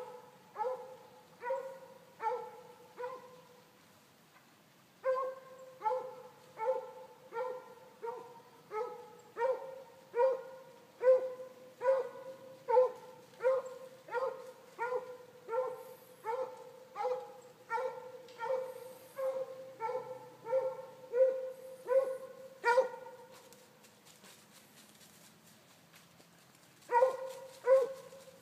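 Hound baying on a fox's scent trail: a long series of evenly spaced, same-pitched barks, a little under two a second. They break off briefly after the first few, run on, then stop for about four seconds before starting again near the end.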